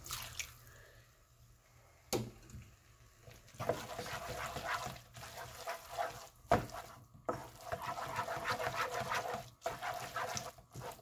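Wooden spoon stirring instant noodles and bacon in a frying pan wetted with hot pasta water: a wet, sloshing scrape that starts a few seconds in, broken by a few sharp knocks of the spoon against the pan.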